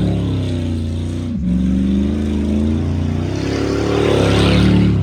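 A vehicle engine running steadily, its pitch rising and falling slightly, with a brief break about a second and a half in.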